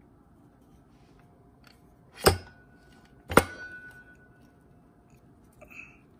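Two sharp metal clunks about a second apart as the DCT470 dual-clutch basket assembly is worked down onto the transmission input shaft and into the case, the second leaving a brief metallic ring.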